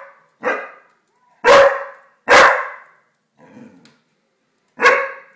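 English springer spaniel barking at an open fire: four short, sharp barks, with a softer, lower sound between the third and fourth.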